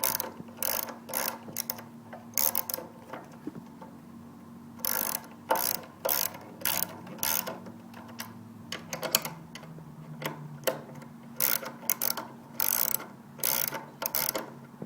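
Socket ratchet wrench clicking in runs of short back-strokes as the motorcycle's brake caliper bolts are tightened, with a pause of a couple of seconds early on.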